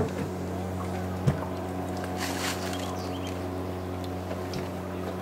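A boat's motor running steadily with an even, low hum. Two sharp clicks break in, one at the very start and one about a second in, and a short hiss comes a second later.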